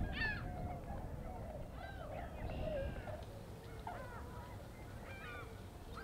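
A flock of swans calling: many short, overlapping honking calls from several birds, each rising and falling in pitch.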